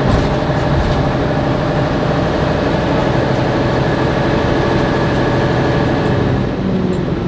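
Vintage bus's diesel engine heard from inside the passenger cabin, running steadily as the bus drives along; the engine note eases off slightly near the end.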